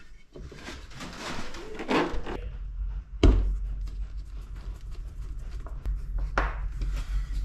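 Handling noises as a wooden guide strip is positioned and fixed against a boat's cabin side: light rustling and clicks, with a sharp knock about three seconds in and another short sharp sound near the end.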